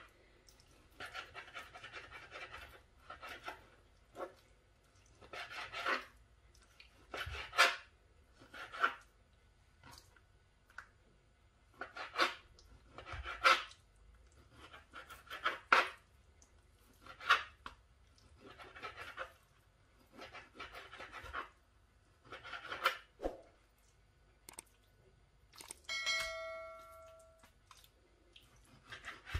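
Kitchen knife cutting raw chicken breast into small pieces on a plastic cutting board: short slicing strokes, roughly one a second, each ending as the blade meets the board. Near the end a short electronic chime sounds for about a second and a half.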